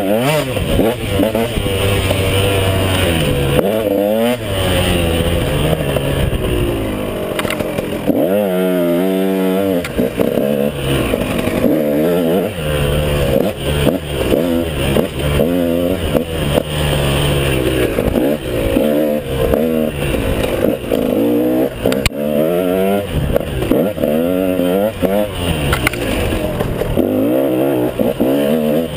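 KTM 150 XC two-stroke single-cylinder dirt bike engine being ridden hard on and off the throttle, its pitch rising and falling over and over through revs and gear changes, with one longer climb and fall about eight seconds in.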